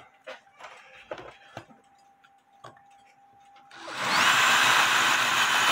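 A few faint handling clicks, then about four seconds in a DeWalt DCD708 cordless drill starts and runs loud and steady, its bit drilling into a steel clock mainspring.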